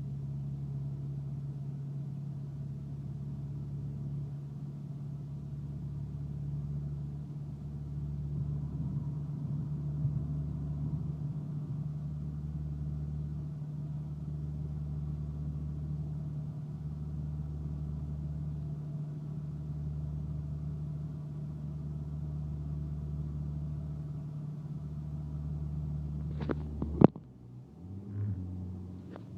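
Rebuilt turbocharged Chevrolet Cobalt SS engine running at a steady, unchanging pitch. Near the end there is a sharp knock, after which the engine note drops and changes.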